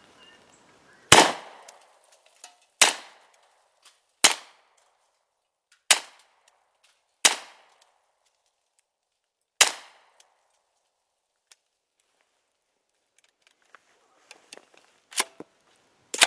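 Hi-Point .40 caliber carbine firing single shots, about eight in all at uneven intervals, each a sharp crack with a short tail. After the sixth shot there is a long pause of about five seconds with a few faint clicks before the last two shots.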